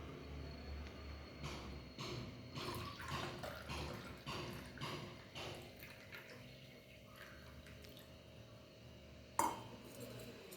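Liquid dripping and splashing in a run of small, irregular drops for a few seconds, then a single sharp knock near the end.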